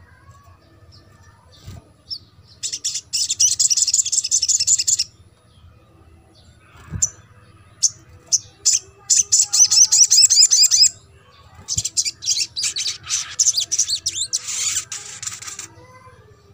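Olive-backed sunbird singing: three bursts of rapid, high, twittering trills, each two to three seconds long, with short pauses between.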